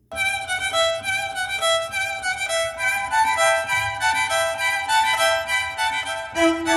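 Dramatic violin music played back at half volume through a W-King portable Bluetooth speaker, starting abruptly just after the start.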